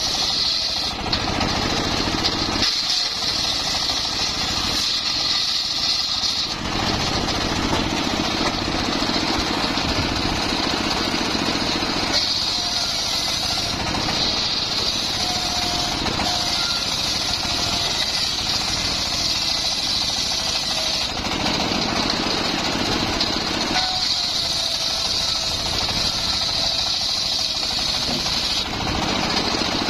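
Homemade circular-saw sawmill running and cutting mahogany: a steady mechanical din, with a high hiss that comes and goes every few seconds.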